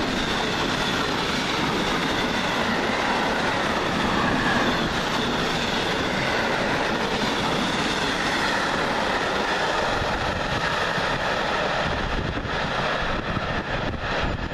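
Freight train of covered steel-coil wagons rolling past close by at speed: a steady loud rush and rumble of wheels on rail. There is faint high-pitched wheel ringing, and sharper clatter near the end as the last wagons go by.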